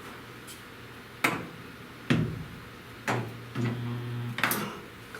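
Sharp clicks and knocks, four of them about a second apart, with a short low buzz between the last two, from working a stud-welder dent puller on a car's steel outer rocker panel.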